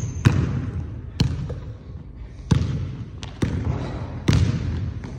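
A basketball being dribbled on a hardwood gym floor: about six bounces, roughly one a second, each echoing in the hall.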